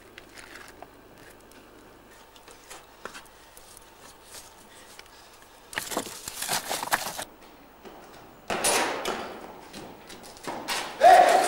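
Faint footsteps scuffing and rustling through dry brush and gravel, with a louder flurry of scrambling about six seconds in and another around nine seconds.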